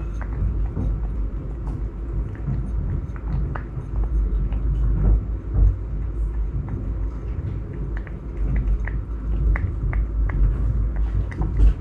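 A cat eating from a dish right at the microphone: many quick, irregular licking and chewing clicks over a heavy low rumble.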